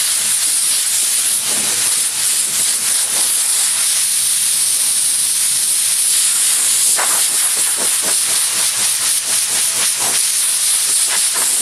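Compressed-air blow gun hissing loudly and steadily as it blows sanding dust off block-sanded body filler on a car's quarter panel, then cutting off sharply at the end.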